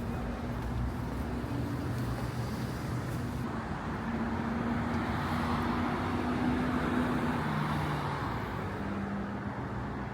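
Steady road-vehicle noise: a continuous rumble and hiss of traffic or a car on the move, swelling a little midway.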